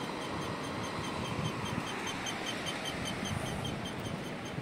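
Steady low rumble of a stalled mountain-road traffic jam, with a faint high chirp repeating about four to five times a second.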